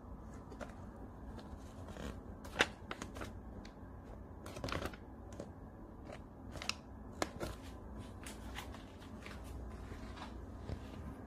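Irregular light clicks, knocks and rustles of parts being handled and adjusted on a round-bottle labeling machine, over a low steady hum, with the sharpest knocks about two and a half and seven seconds in.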